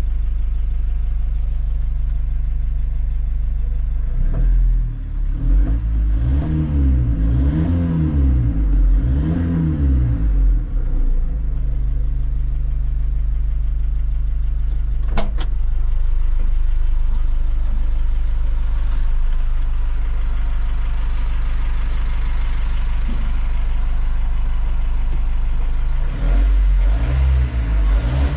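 Mitsubishi L300 Euro 4 common-rail turbo-intercooled four-cylinder diesel engine running steadily, revved up and down several times in quick succession, then settling back to a steady note before revving again near the end. There is one sharp click partway through.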